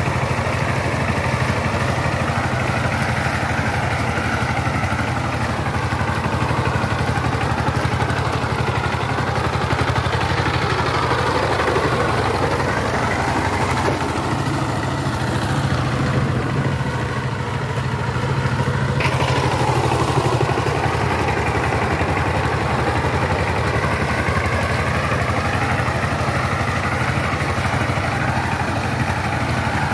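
The single-cylinder diesel engine of a two-wheel power tiller runs steadily under load while the machine tills wet paddy mud. A little past halfway the engine note sags briefly, then picks up again.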